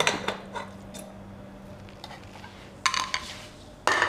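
Metal mesh strainer clanking against an aluminium pressure cooker as raw chicken pieces are tipped in: a few sharp knocks at the start, then more about three seconds in and just before the end.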